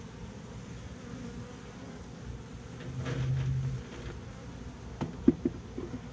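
Honeybees buzzing around their exposed comb during a cutout, a steady hum that swells louder for under a second about three seconds in. A few sharp knocks near the end.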